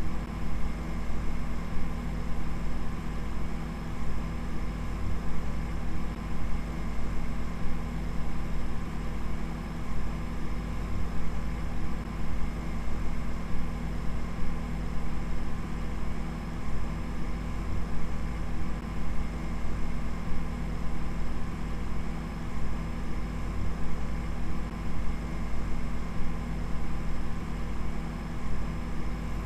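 Steady low droning hum with a faint hiss over it.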